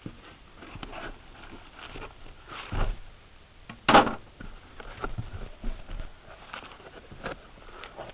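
A cardboard shipping box and its packing being handled and opened: irregular rustling and knocking, with a low thump a little before three seconds in and a short, sharp, loud rip or crunch about four seconds in.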